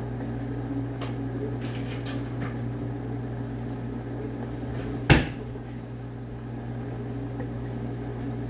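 A steady low hum with a few light clicks and knocks, then about five seconds in one sharp, loud bang of a kitchen cupboard door being shut.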